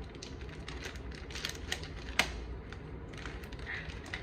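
Irregular light clicks and taps from kitchen utensils and containers being handled during cooking, over a low steady hum; one sharper click about two seconds in.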